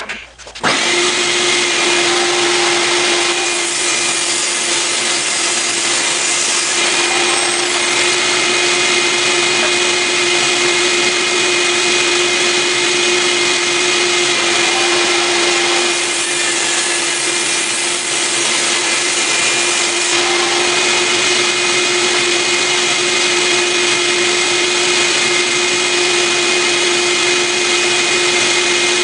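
Table saw switching on about a second in and running steadily with a constant whine while white oak is ripped into a strip.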